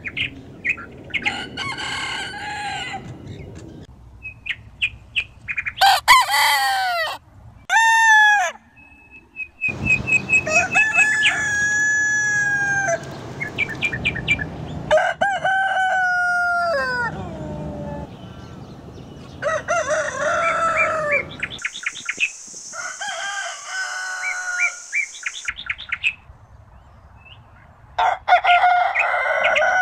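Roosters crowing one after another, about eight crows of one to three seconds each, several falling in pitch at the end. Between them come short clucks and a quick run of repeated chirping notes.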